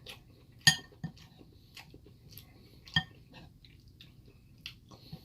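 Close-up eating sounds: soft chewing of curry and naan, with two sharp clinks of a utensil against a dish, the first under a second in and the second about three seconds in.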